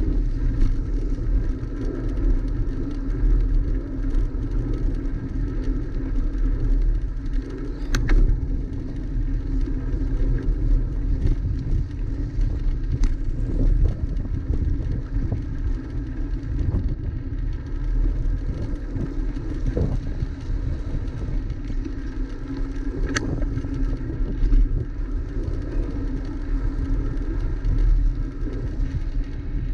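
Wind rumble on a bicycle-mounted action camera's microphone while riding, with the rolling noise of the bike's tyres on asphalt and a few sharp clicks or rattles.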